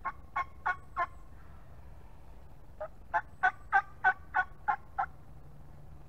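Turkey yelping: two runs of short, evenly spaced yelps, about three a second. Four come in the first second, then after a pause eight more, louder in the middle of the run.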